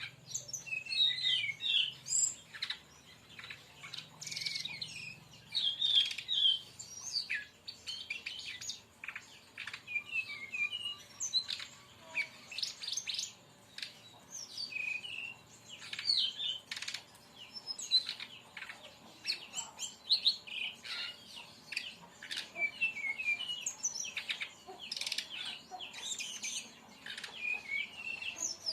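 Brown-chested jungle flycatcher (sikatan rimba dada coklat) singing rapid bursts of short, high chirps and trills, the fast 'tembakan' style of song, phrase after phrase with brief gaps.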